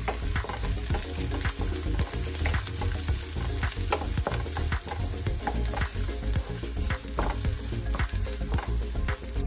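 Chopped onions and green chillies sizzling in hot oil in a pan while a wooden spatula stirs them, with frequent scrapes and knocks of the spatula against the pan over the steady sizzle.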